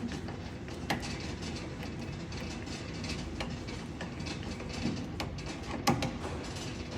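Phillips head screwdriver turning long pan head screws by hand into the end of an aluminium crossbar tube through a drawer slide handle, with scattered small clicks and two sharper knocks, about a second in and near the end.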